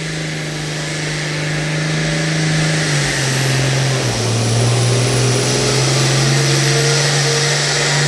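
Diesel engine of an International Harvester pro farm pulling tractor running flat out under load, with a high steady whine over it. About three to four seconds in, its pitch steps down as the sled drags the engine down.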